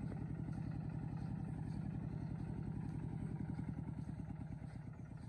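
A small vehicle engine running steadily with a fast, even pulse, easing off a little about four seconds in.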